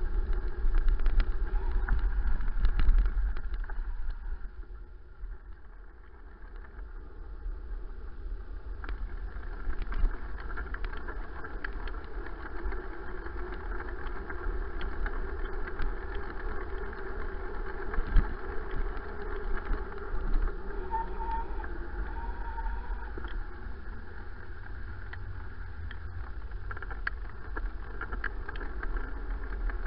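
Wind rumble and tyre noise picked up by a handlebar-mounted camera on a moving bicycle with a knobbly front tyre. Scattered rattles and knocks come from the bike going over bumps. It is louder in the first few seconds.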